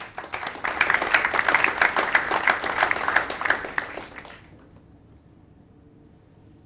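A small audience applauding, with dense clapping that dies away about four and a half seconds in, leaving quiet room tone.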